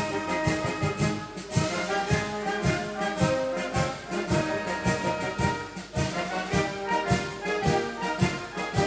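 Brass band playing a piece with sustained brass chords over a steady drum beat.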